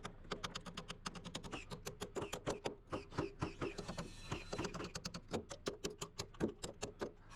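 A rapid, irregular run of light clicks or taps, several a second.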